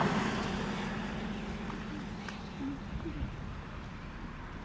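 Steady low rumble of a car driving, heard from inside the vehicle, with a faint hum that fades out early on.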